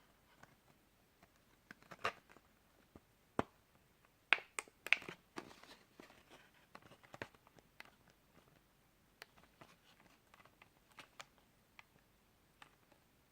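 Small items and their packaging being handled and unwrapped: faint scattered clicks and light crinkling, with a few sharper clicks in the first five seconds.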